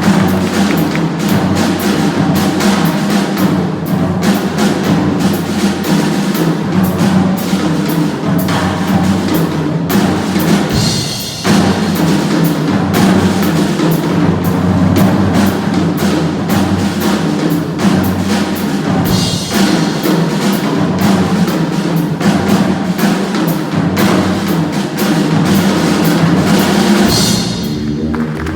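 Funk music with a busy drum kit groove over a steady bass line. The groove breaks briefly about a third of the way in and comes back with a cymbal crash, and the tune winds down near the end.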